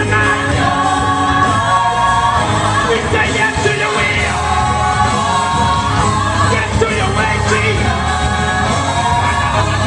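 Gospel choir singing live with band accompaniment, sustained sung lines over a steady bass.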